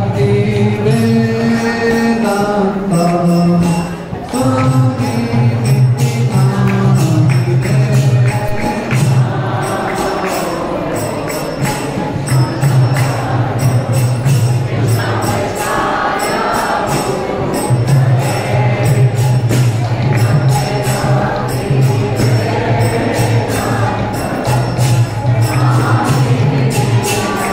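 Devotional kirtan for a temple aarti: group chanting of a mantra over fast, steady clashing of hand cymbals (kartals), with a low sustained tone underneath.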